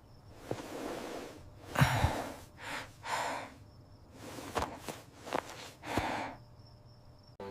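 Breathing: a series of breathy, hissing puffs, some short and some about a second long, separated by quieter gaps.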